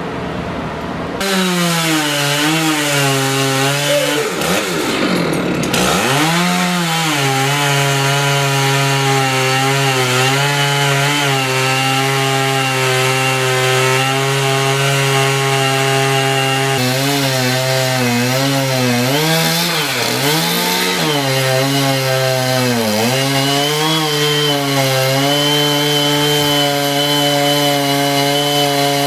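Chainsaw engine running at high revs while cutting wood. It cuts in abruptly about a second in, then holds a steady high pitch that sags and picks up again several times as it works.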